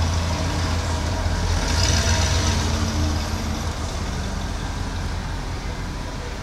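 1972 Dodge Challenger engine idling close to the grille-mounted microphone, a steady low rumble. A pickup truck drives past just in front; its sound swells about two seconds in and fades away.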